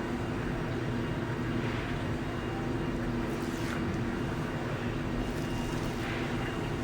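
Steady machine hum with several low tones held evenly, from a cryolipolysis machine's cooling and vacuum unit running. A few faint soft rustles come through now and then.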